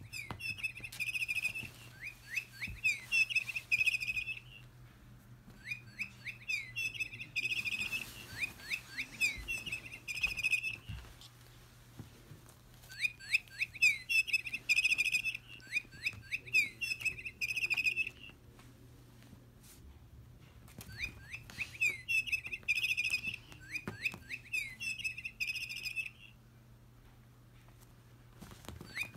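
Bird-chirp sound from an electronic feathered-ball cat toy: rapid high chirps in bouts of four to five seconds, each followed by a pause of about two seconds, the same pattern repeating over and over.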